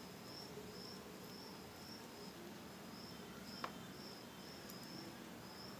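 A cricket chirping steadily in the background, a short high chirp about twice a second. A single sharp click about three and a half seconds in.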